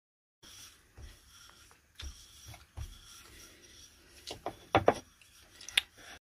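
Wooden rolling pin rolling out soft bread dough on a wooden board: a faint rubbing broken by light knocks and clicks, the sharpest ones near the end.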